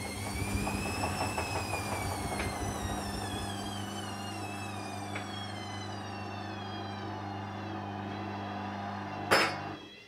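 Hoover Dynamic washing machine's drum motor whining, the pitch rising briefly and then falling as the drum slows, with knocking from the drum in the first few seconds. This is a spin attempt failing on a badly unbalanced load with a suds lock. Near the end a loud clunk, and the machine's hum stops.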